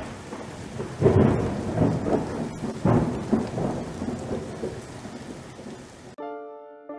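Thunderstorm sound effect: two thunder cracks, about a second in and again about three seconds in, with rumbling over steady rain hiss that fades. It cuts off suddenly near the end, and piano notes begin.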